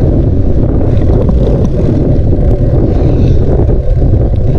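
Wind buffeting the microphone while riding a bicycle: a loud, steady low rumble.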